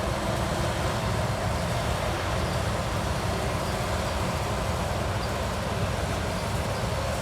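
Steady low engine rumble of a running vehicle or harvest machine, unchanging throughout.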